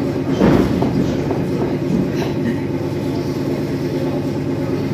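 Suburban electric train running, heard from inside the car: a steady hum over the rumble of the wheels, with one louder knock about half a second in and lighter knocks after.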